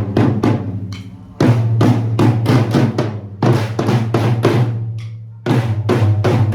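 Samba band drumming: rapid, loud drum strikes over a deep, ringing bass drum, in phrases that break off and start again about every two seconds.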